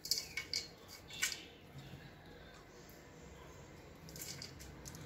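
Hands scooping dry, crumbled semolina flatbread (harcha) in a stainless steel pot: a few short crackly rustles in the first second and a half, then softer rustling of the crumbs about four seconds in.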